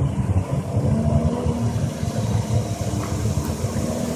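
Jet ski engine running steadily at speed on open water, a continuous engine drone over a dense low rumble.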